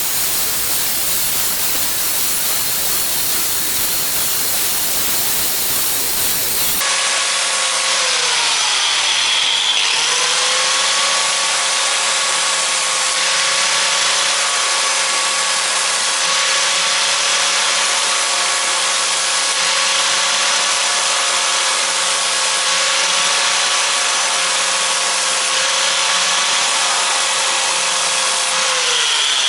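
Corded electric grinder grinding the steel teeth of a hedge trimmer blade for sharpening: a loud, steady motor whine over a grinding hiss, which sags for a moment as it bites in and winds down near the end.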